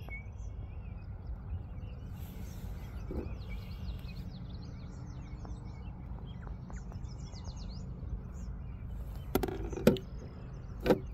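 Birds chirping and calling over a steady low rumble, with a few sharp knocks near the end.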